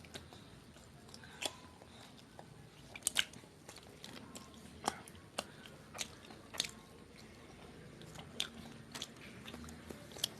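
Faint chewing and eating mouth sounds from a person eating chhole bhature: a dozen or so irregular short clicks and smacks, the loudest about three seconds in.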